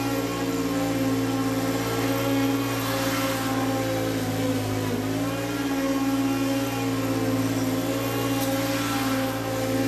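Stand-on zero-turn mower engine running steadily while mowing, its pitch dipping briefly about five seconds in. A rushing hiss swells twice, around three and nine seconds in.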